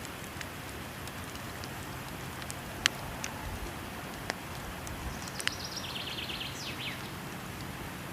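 Wood fire crackling with a few sharp pops, the loudest about three seconds in, over a steady rush of falling water. A bird trills briefly just past the middle.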